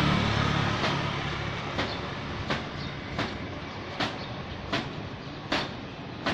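A motor vehicle passes close by, its engine hum and noise fading over the first couple of seconds. Then sharp knocks repeat evenly, about one every three-quarters of a second.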